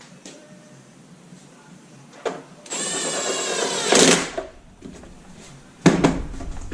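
A cordless power driver runs for about a second and a half with a slightly rising motor whine and ends in a loud burst. It is followed by scattered clicks and a sharp knock of tools or parts near the end.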